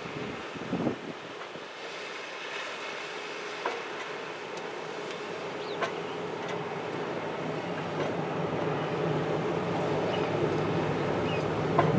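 Large container ship under way close by: a steady mechanical rumble with a low hum that slowly grows louder, broken by a few short knocks.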